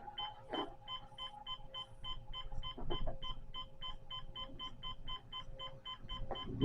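Digital clock beeping rapidly and evenly, about four short high beeps a second, with a couple of soft handling knocks.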